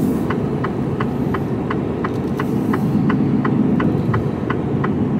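HGV tractor unit heard from inside the cab: the diesel engine running with a steady low drone, and the turn-indicator relay ticking about three times a second as the truck signals for the roundabout.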